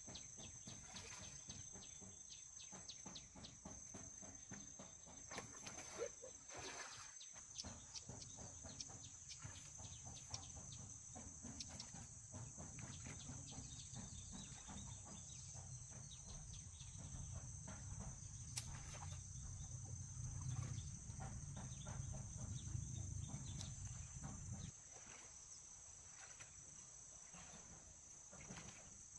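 Faint, steady high-pitched insect chorus, like crickets or cicadas, trilling throughout. Frequent small clicks and rustles sound over it, with a low rumble that cuts off about 25 seconds in.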